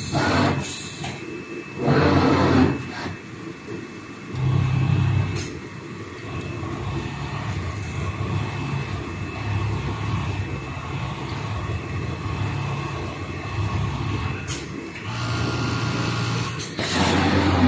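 Automatic sponge sewing machine running: a steady low motor hum that pulses unevenly, with louder bursts of noise about two seconds in and near the end.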